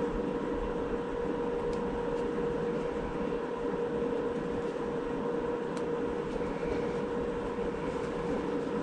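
A steady machine hum: an even rushing noise with a constant pitched tone, with two faint ticks about two and six seconds in.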